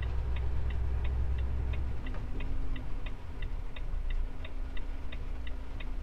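Truck's turn-signal indicator ticking steadily inside the cab, about three clicks a second, over the low rumble of the truck's engine, which eases a little about two seconds in.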